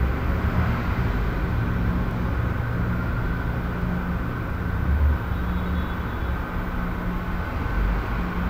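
Residential room tone: a steady low rumble and hum with a faint hiss above it, and a brief low swell about halfway through.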